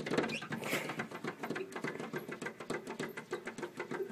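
Cats' paws tapping and scratching rapidly against a glass door pane: a fast run of light clicks, about seven a second.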